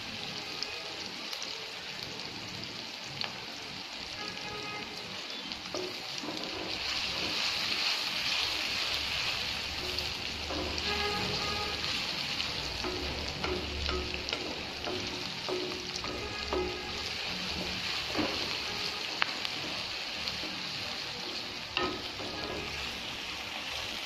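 Sliced onions frying in hot oil in a metal kadai, a steady sizzle. Now and then a wooden spatula knocks and scrapes against the pan as the onions are stirred. The onions are being fried until they brown.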